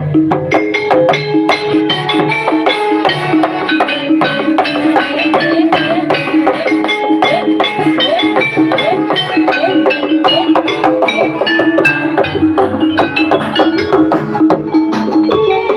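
Javanese gamelan music for a jathilan (kuda kepang) dance: struck metallophones play a dense, repeating run of notes over steady drum strokes.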